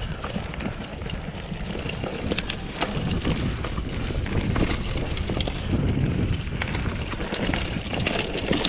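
Full-suspension mountain bike ridden over a dirt forest trail: tyres rolling on the dirt in a steady rumble, with frequent clicks and rattles from the bike over roots and bumps, a little louder from about three seconds in.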